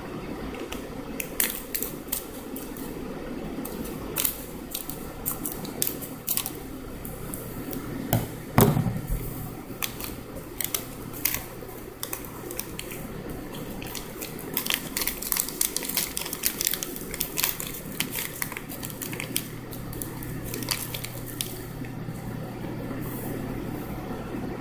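A foil wafer wrapper crinkling and crackling in the hands as it is cut open and the wafer is taken out, with a louder knock about eight and a half seconds in. A steady low hum sits underneath.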